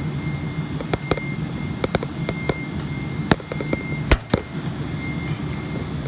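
Hand cutters working on a freshly made exothermic-welded copper joint: scattered sharp metallic clicks and knocks, with the loudest snaps about three and four seconds in as the excess piece of copper is cut off. A steady background hum runs underneath.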